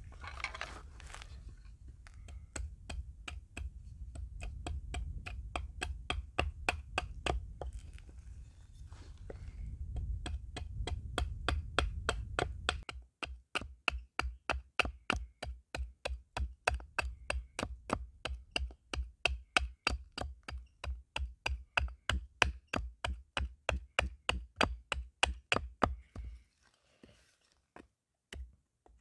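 Quick, regular knocks of a tool striking wood, about three a second, with a brief pause near the end. A low rumble runs under the first half and then stops.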